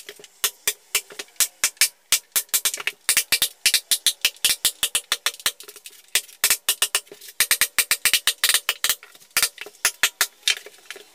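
Background music: a quick beat of sharp, clicking percussion over faint sustained tones.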